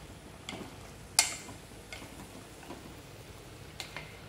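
Wooden chopsticks tapping and clicking against an aluminium pot while stirring a braise: a few scattered sharp taps, the loudest about a second in with a brief ring.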